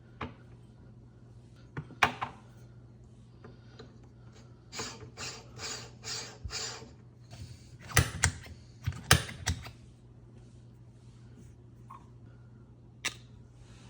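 Espresso preparation handling sounds: scattered metal clicks and knocks, a run of short quick scraping strokes about five seconds in, then a cluster of loud knocks a little later, over a steady low hum.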